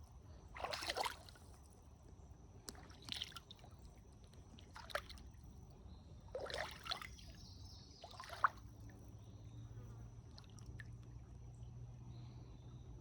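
Water splashing and sloshing in a handful of short, irregular bursts, over a faint steady high-pitched tone.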